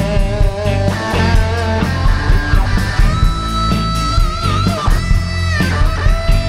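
Live rock band playing an instrumental passage: an electric guitar takes the lead over bass and a steady drum beat. From about halfway the lead guitar holds long notes, bending and wavering them.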